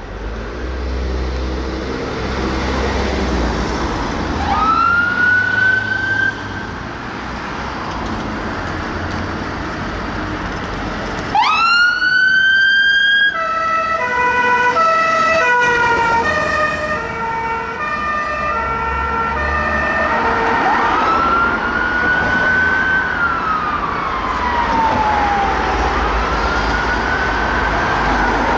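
Fire engine siren: a short rising wail, then a loud wind-up near the middle that switches to two-tone hi-lo, alternating between two pitches for about six seconds, then a slow wail rising and falling. Vehicle engine and traffic rumble run underneath.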